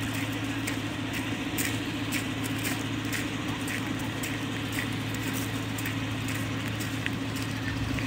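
Footsteps crunching on a gravel path, about two steps a second, over a steady low hum.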